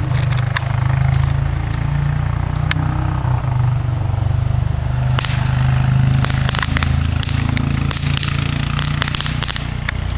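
Consumer firework crackling: rapid sharp crackles that thicken from about halfway through, over a steady low rumble.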